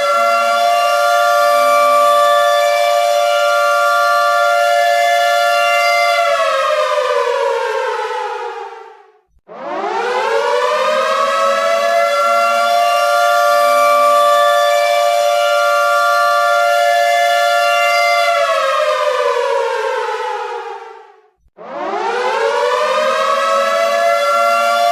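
Air raid siren sounding two close notes together in a repeating wail. The held tone winds down over about three seconds and cuts out for a moment, then winds back up and holds. This happens twice, with the second rise starting near the end.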